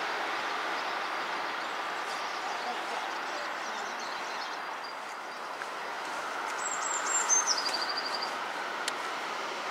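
Diesel multiple units running on the line: a steady rumble and rail noise as a Class 150 Sprinter pulls away, rising again as another unit approaches. About seven seconds in, a high whistle steps down in pitch.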